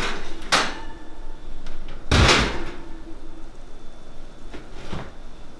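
A metal baking pan sliding onto the oven rack, then the oven door swung shut with a loud thud about two seconds in, and a lighter knock near the end.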